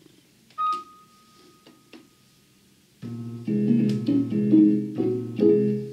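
Portable electronic keyboard being played: a single high note sounds and fades away, then from about three seconds in, loud chords change every half second or so before dying away at the end.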